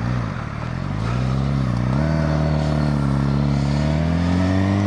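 Suzuki GSX-R600's inline-four engine accelerating, its pitch rising, dropping briefly at a gear change about two seconds in, then climbing steadily again, with wind noise.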